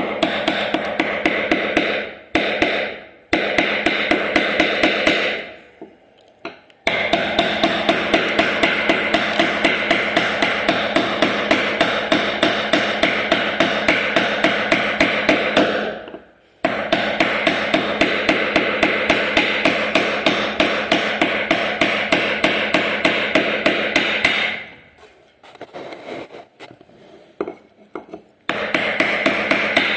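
Mallet rapidly tapping a carving chisel into a wooden door panel, about five even strikes a second, in runs of several seconds broken by short pauses.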